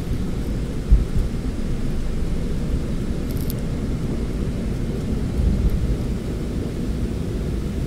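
Jet airliner heard from inside the cabin during the takeoff roll: a loud, steady low rumble of the engines and the wheels on the runway, with a thump about a second in.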